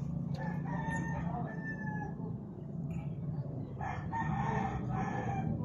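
A rooster crowing, the longest and strongest crow about four seconds in, over a steady low hum.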